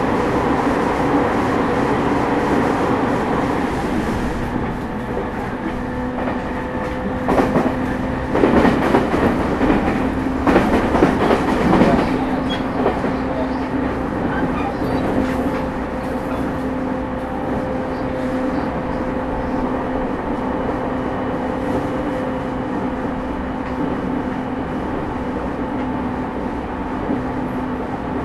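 JR East 209 series electric commuter train running, heard from inside the car with the air conditioning on: a steady rumble and hum of motion. About seven seconds in comes a run of louder clattering knocks from the wheels over the track, which dies away after about five seconds.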